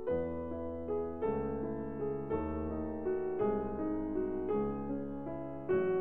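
Slow, gentle piano music, a new note or chord struck about once a second and left to ring.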